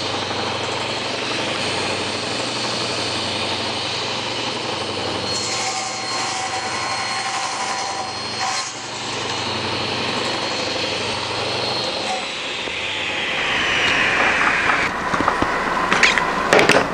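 Table saw running with a steady whine, cutting thin slices of burl wood on a segmenting sled. About twelve seconds in it is switched off and the whine falls as the blade spins down, followed by a few clicks and knocks.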